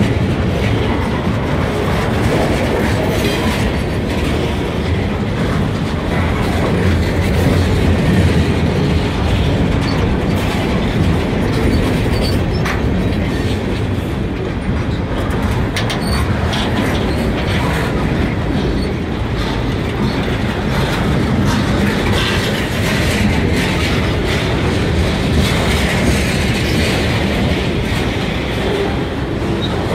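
Freight cars rolling past at close range: a steady rumble of steel wheels on rail, with scattered knocks of wheels over the rail joints.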